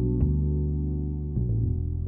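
Background music: calm, ambient-style music with sustained low notes that change about every second and a few soft ticks.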